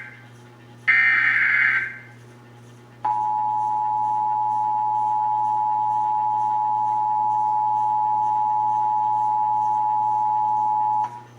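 Emergency Alert System test signal. First comes a one-second burst of the SAME header's data tones. About a second later the two-tone EAS attention signal (853 Hz and 960 Hz sounding together) holds steady for about eight seconds and cuts off abruptly.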